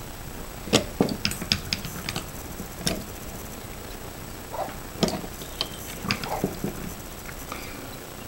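Homemade lever-operated shotshell press working a loaded shotgun shell through its sizing die, with sharp metal clicks and knocks. The clicks come in two bursts, one about a second in and another around five to six and a half seconds in.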